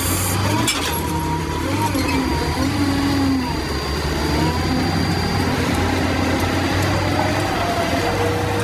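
Volvo log loader's diesel engine running under load, a steady low hum with a whine whose pitch rises and falls a little as the machine works.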